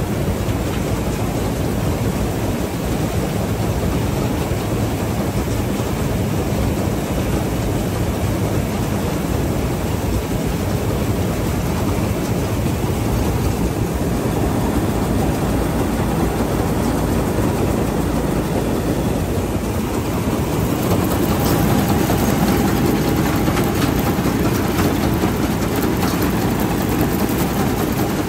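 Somboon Phatthana combine harvester's diesel engine running steadily. About twenty seconds in it grows a little louder, with more hiss.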